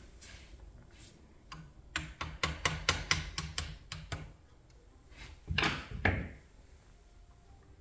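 A quick run of about a dozen light, sharp clicks, some five or six a second: a pointed pin tool tapping and pushing against the small pin of a model crane's boom-cylinder mount. Near the end comes a short, louder scraping clatter of the tool and parts being handled.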